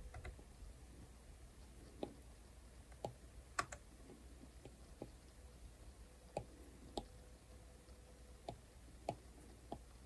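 Stylus tip tapping and stroking on a tablet's glass screen: faint, sharp clicks, about ten of them at irregular intervals as strokes are laid down.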